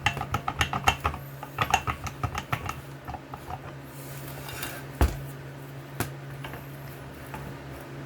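Metal parts of a snowblower's auger gearbox clinking and rattling as it is taken apart by hand: a quick run of sharp, ringing clicks for the first few seconds, then a single knock about five seconds in and a lighter click a second later.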